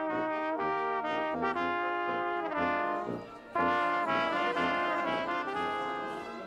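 Several trumpets playing a tune in held notes, with a short break a little past three seconds in; the playing fades near the end.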